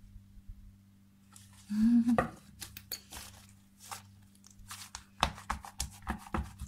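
A run of quick, sharp clicks and taps from hands handling slime and small objects on a tabletop, over a steady low electrical hum. A brief vocal sound about two seconds in is the loudest thing.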